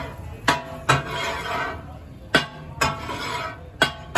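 Steel katakat blades clanking and scraping on a flat iron tawa griddle as fried fish is chopped and mixed: about six sharp metallic clanks at irregular intervals.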